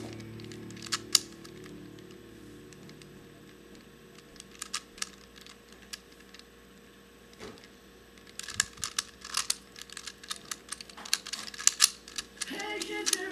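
Plastic clicking of a megaminx puzzle's faces being turned by hand: a few separate clicks in the first half, then rapid runs of clicks from about eight seconds in as a move sequence is worked through. Guitar-like music comes in just before the end.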